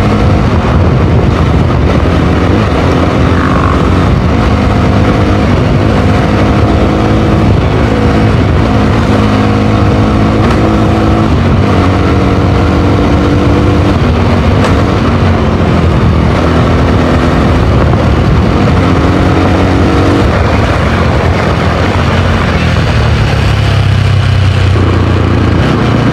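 Single-cylinder sport motorcycle engine running while ridden, its note climbing and dropping back again and again as the rider works the throttle and gears, under a steady rush of noise. For a few seconds near the end the revs fall to a low note before picking up again.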